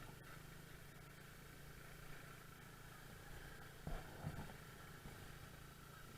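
Honda Zoomer scooter's small 49 cc four-stroke single-cylinder engine running steadily and faintly, with a couple of soft low thumps about four seconds in.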